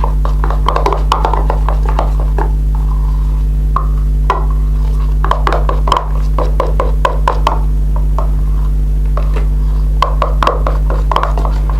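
A spoon stirring a glue, shaving-foam and paint slime mixture in a bowl: irregular quick taps and scrapes against the container, over a steady low electrical hum.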